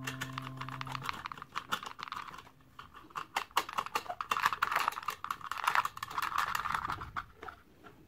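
A hex nut being spun by hand along a long threaded steel rod, with quick, irregular small clicks and rattles of metal on the threads and the plastic saucers. It starts about a second in and stops shortly before the end.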